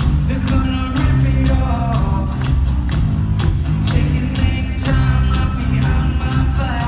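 Rock band playing live through an arena PA: a steady drum beat of about two hits a second under loud distorted guitars and bass, with a sung lead vocal. Heard from far back in the hall.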